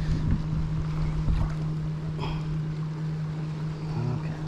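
Wind on the microphone and water against a kayak hull, over a steady low hum, with a few faint knocks.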